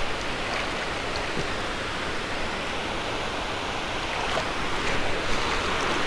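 Steady rushing water noise from the moving river around the kayak, growing slightly louder in the last couple of seconds, with a few faint ticks.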